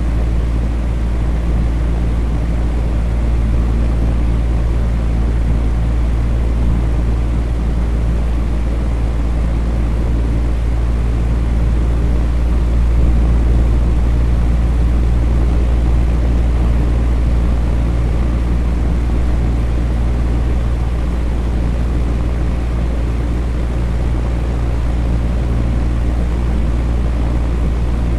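Electric fan running steadily: a deep, even whoosh of moving air with a low hum.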